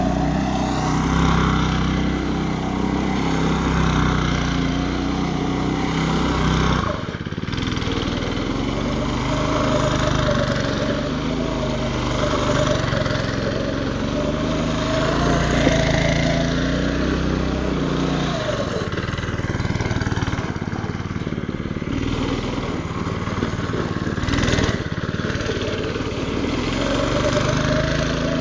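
Homemade go-kart's small engine running hard as the kart spins donuts on dirt, its pitch wavering up and down with the throttle and dipping briefly a few times.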